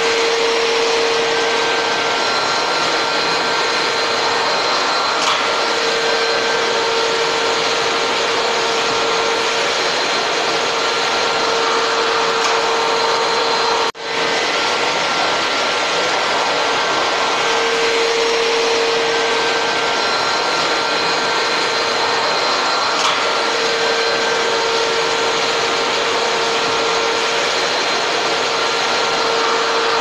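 Canister vacuum cleaner running steadily: a constant loud rushing hiss with a steady hum. The sound drops out for an instant about halfway through, then carries on unchanged.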